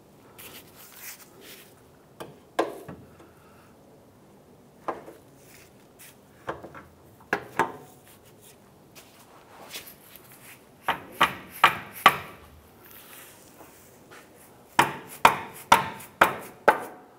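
Rubber mallet striking a new lower control arm to knock it into its mounting position. The blows come irregularly at first, then in a quick run of about four near the middle and another run of about five near the end.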